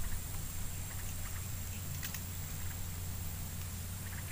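Steady outdoor background: a constant low hum with a thin, steady high-pitched whine over it, and a few faint clicks.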